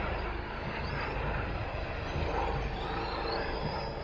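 Battery-powered radio-controlled trucks driving on grass, a faint electric motor whine that rises and falls, over steady wind rumble on the microphone.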